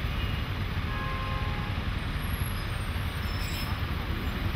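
Heavy road traffic: diesel goods trucks and a city bus running, with a steady low rumble as the bus passes close. A brief high hiss comes about three and a half seconds in.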